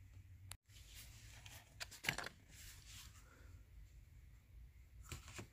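Faint, scattered light clicks and rustles from handling a Hot Wheels die-cast car and its plastic blister pack, with a couple of slightly louder ones about two seconds in and near the end; otherwise near silence.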